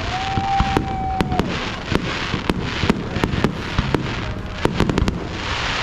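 Fireworks going off: many sharp bangs and pops at an irregular pace, several a second, over a steady rumbling hiss of the show. In the first second and a half a steady whistle-like tone holds on one pitch.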